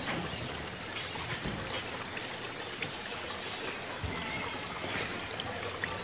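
Steady background hiss, like running water, with no clear events.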